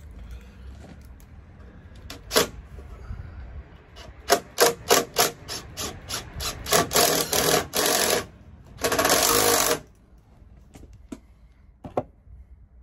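Cordless drill driving a screw into an aluminium drawer. There is a sharp click, then a quick string of short trigger bursts, then two longer runs of about a second each.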